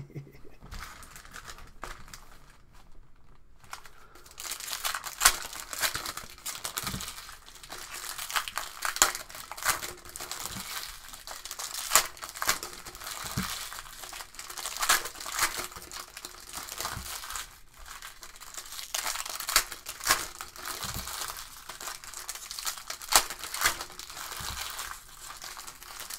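Foil wrapper of a Panini Select Soccer trading-card pack crinkling and tearing as it is worked open by hand, fairly quiet at first, then a dense run of sharp crackles from about four seconds in.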